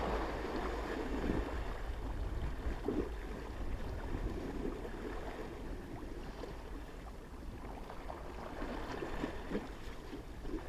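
Wind rumbling on the microphone over the wash of sea waves against the sea wall, steady throughout.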